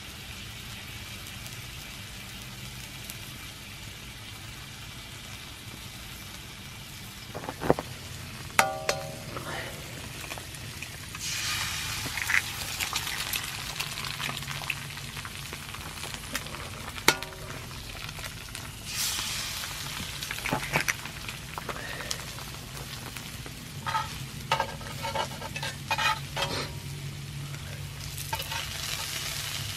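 Sausages frying in an oiled frying pan over a wood fire, with a steady sizzle. A few sharp knocks come around 8 seconds in. About 11 seconds in, the sizzle surges to a loud hiss as an egg goes into the hot oil, and there are more loud bursts later, with short metal clinks of a spatula against the pan near the end.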